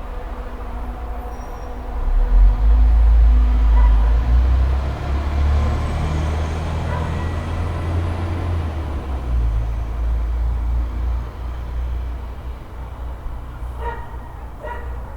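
A motor vehicle passing on a suburban street, a low rumble that swells about two seconds in and fades away after about ten seconds. Near the end come two short pitched calls about a second apart.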